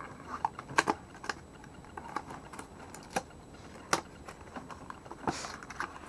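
Cardboard box and plastic packaging being handled and opened: scattered sharp clicks and taps, about one every half second to a second, and a brief rustle of sliding cardboard near the end.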